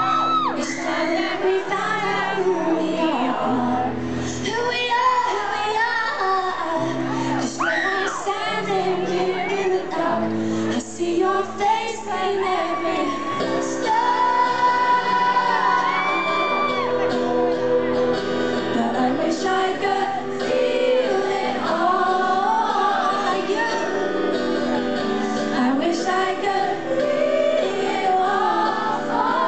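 Live pop concert heard from the audience in a large hall: a band plays with a female lead vocal, with sung lines that rise and fall over held chords.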